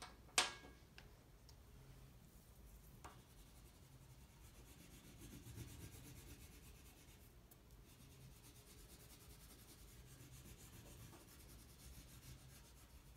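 Oil pastel stick rubbed back and forth across paper, colouring in a broad area with a faint, steady scratchy sound. A sharp click about half a second in, and a softer one near three seconds.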